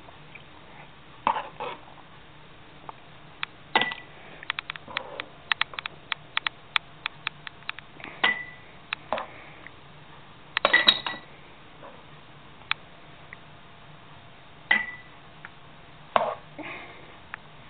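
A utensil clinking and tapping against glass jars and the jam pot while hot jam is spooned into the jars: scattered clinks, a quick run of small ticks in the first half, and four or five knocks that ring briefly like struck glass.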